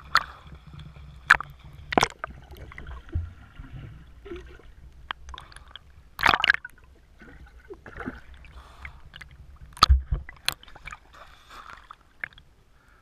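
A young child swimming dog-paddle with big arm strokes, heard at the waterline: water gurgling and sloshing over a low rumble, broken by irregular sharp splashes of the arms hitting the water. The biggest splashes come about six seconds in and again near ten seconds.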